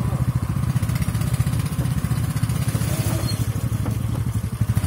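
Small petrol engine of a motorized wheelbarrow running steadily under load, with a fast even firing rhythm.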